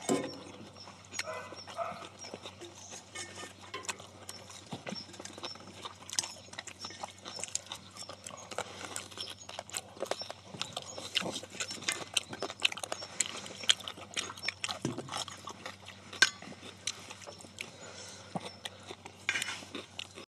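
Several people eating close to the microphone: chewing and lip-smacking, with frequent sharp clicks of chopsticks against steel bowls and the cauldron-lid griddle.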